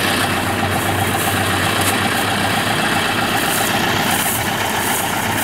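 Engine of a rice-harvest machine idling steadily.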